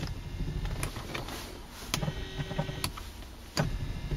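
Electric headrest height-adjustment motor of a Mercedes-Benz W202 running, driving the headrest through its small rack and pinion, with a low hum and a few sharp clicks.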